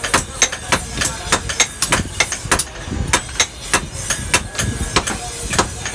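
Hammer blows ringing on metal at an anvil, a steady beat of about three strikes a second, as a cleaver blade is forged, over a low rumble.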